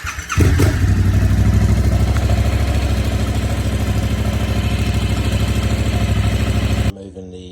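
Yamaha MT-07's 689 cc parallel-twin engine breathing through a Kelpi shorty exhaust. It fires up at the start, then settles into a steady, evenly pulsing idle, and cuts off abruptly near the end.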